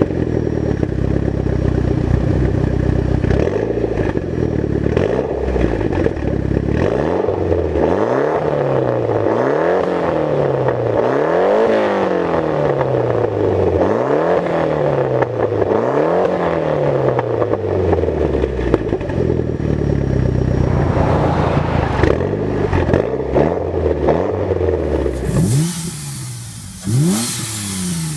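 Mitsubishi Lancer Evolution X's turbocharged 2.0-litre four-cylinder revved while stationary through an ETS quiet aftermarket exhaust. The revs rise sharply and fall back, about one blip every two seconds through the middle. Near the end it cuts to a Ford FG XR50 with an aftermarket exhaust and cold-air intake revving, with a hiss over it.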